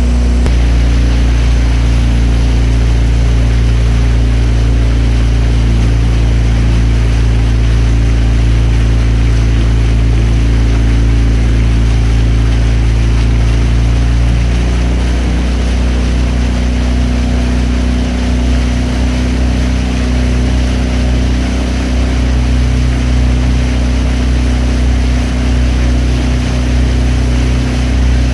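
Motorboat engine running steadily at cruising speed, with a low droning note. About halfway through, the engine note shifts and drops a little in level.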